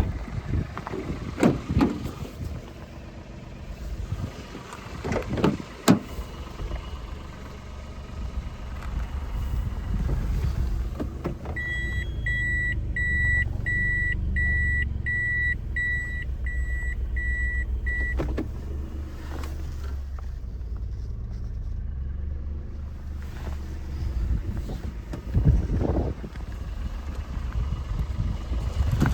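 Toyota Vitz with its 1KR three-cylinder engine running at a steady low rumble, with scattered knocks and clicks. Midway a car warning chime beeps about ten times, about one and a half a second, and stops with a thump.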